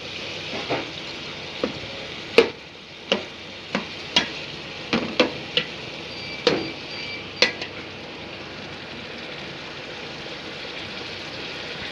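Food sizzling steadily in hot oil in a cooking pot while a spoon stirs it, knocking against the pot about a dozen times in the first seven or so seconds before the frying goes on alone.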